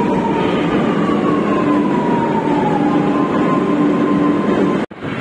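Lucknow Metro train pulling into the platform: a loud rush of wheels and air over a steady low hum, with a whine that slides down in pitch and back up. It cuts off suddenly near the end.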